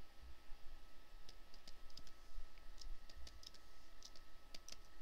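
A dozen or so faint computer mouse clicks, irregularly spaced, as points of a polygonal lasso selection are set one by one. A faint steady high tone runs underneath.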